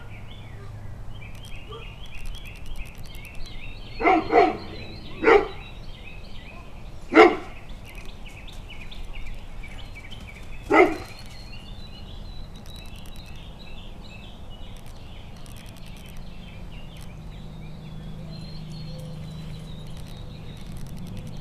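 Great Pyrenees giving deep, single guard barks at the backyard fence: a quick pair about four seconds in, then single barks spaced a second or more apart, the last about eleven seconds in. Birds chirp steadily in the background.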